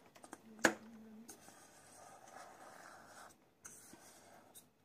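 Knife blade scraping and tapping against a disposable aluminium foil tray while cutting set jelly into cubes, with one sharp tap a little over half a second in and soft scratching after it.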